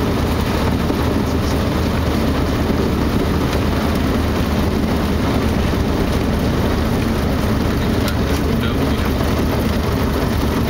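Cessna 152's four-cylinder Lycoming engine and propeller running steadily, heard from inside the cockpit while the plane rolls along the runway: a constant low drone.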